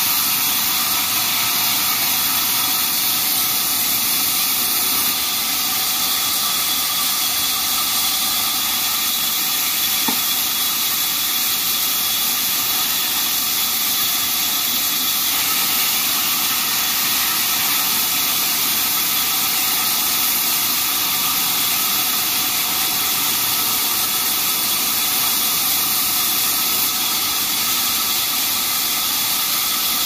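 Large vertical sawmill band saw running and ripping a thick bark-edged plank of yellow wood as it is pushed past the blade: a steady, unbroken hissing whine.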